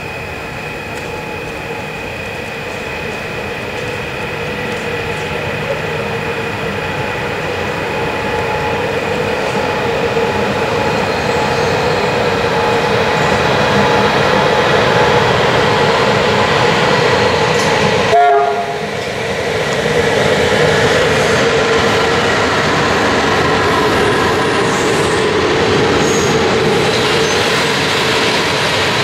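Romanian CFR electric locomotive of the class 40/41/45 family hauling a passenger train past, its running noise steady with a few held tones over a rumble. It grows louder as it approaches, then the coaches roll by. A brief break cuts through the sound about two-thirds of the way in.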